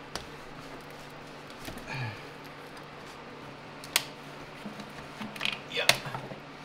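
Flathead screwdriver prying at a plastic air-box retaining clip, giving two sharp plastic clicks, one about four seconds in and a louder one near the end as the clip comes out. A faint steady hum runs underneath.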